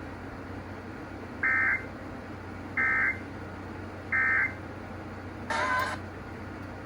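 Emergency Alert System end-of-message code: three short bursts of warbling two-tone digital data, about 1.3 s apart, signalling the end of the alert. About a second after the third, a briefer, harsher electronic burst follows, over steady hiss.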